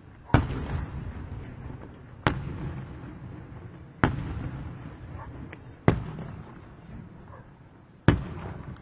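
Aerial firework shells bursting: five sharp bangs about two seconds apart, each followed by a fading rumble.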